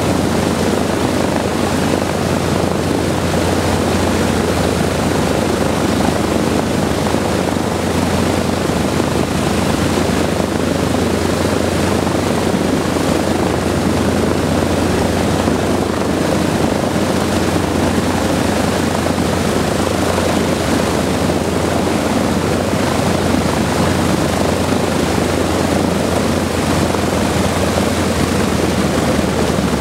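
Wright R-3350 radial piston engines of a Lockheed Super Constellation running steadily on the ground, a loud unbroken propeller drone with a constant low hum. Three engines are turning; the number four engine is shut down because not enough fuel could be got to it to keep it running.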